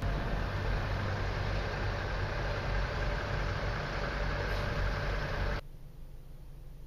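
Semi trucks' diesel engines idling: a steady low rumble with a hiss over it, which drops off abruptly to a much quieter background about two-thirds of the way through.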